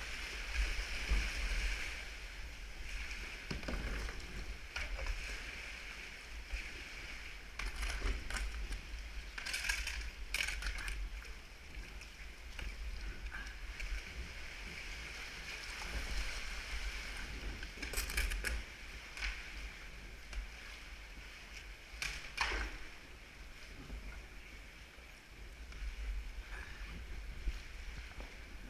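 Kayak paddling on the sea: water running and dripping off the paddle blades, with a handful of sharper splashes from paddle strokes, over a steady low rumble.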